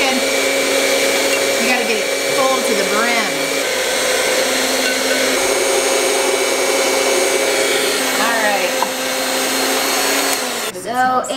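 Sunbeam electric stand mixer running steadily, its beaters creaming butter and sugar in a glass bowl until the dough is fluffy; the motor is switched off near the end.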